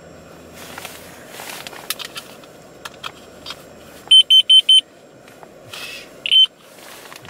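Digital timer beeping: a quick run of four high electronic beeps a little past four seconds in, then a single beep near the end. Light rustling and clicks of handling run underneath.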